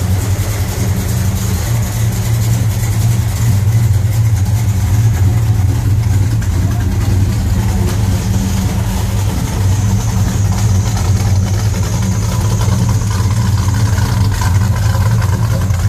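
1975 Dodge Dart Hang 10's engine idling steadily.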